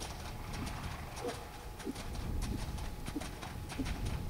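A ridden horse's hoofbeats on a wet sand arena: a quick, uneven run of clicks and thuds.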